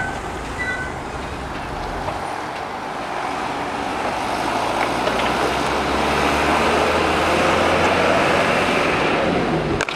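Steady road noise of wheels rolling on pavement, with a faint low hum underneath. It grows louder through the middle and breaks off abruptly just before the end.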